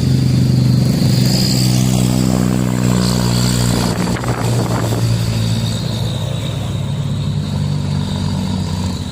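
Truck engine running steadily, with a brief rush of noise about four seconds in.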